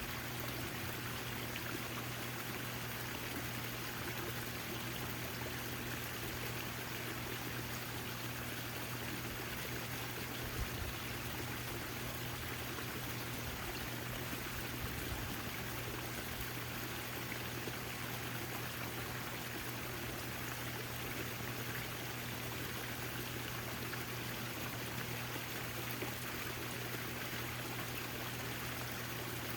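Backyard fountain water splashing and trickling steadily, with a steady low hum underneath.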